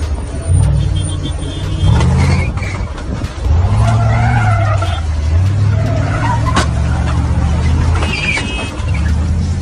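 SUV engines revving in surges, with tyres squealing as the vehicles shove against each other. A single sharp knock comes about six and a half seconds in.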